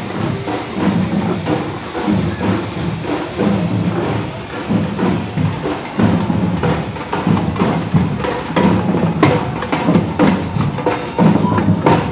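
Live band music with drums and percussion beating out a rhythm, the strikes growing denser over the last few seconds.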